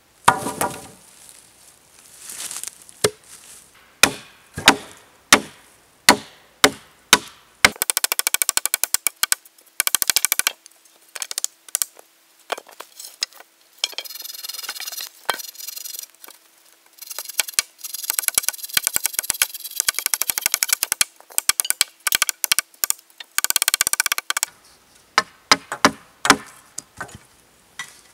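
Axe chopping into a log: a run of sharp strokes about every two-thirds of a second, then stretches of rapid clicking and scraping on the wood, with a few more knocks near the end.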